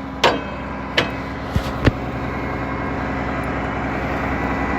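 Tractor engine running steadily, with four sharp metallic knocks in the first two seconds.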